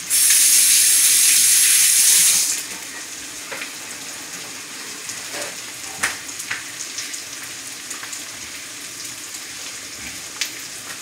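Ribeye, mushrooms and butter frying in a skillet with a steady sizzle. It opens with a loud hissing rush of about two and a half seconds that cuts off suddenly, and a few light knocks follow later.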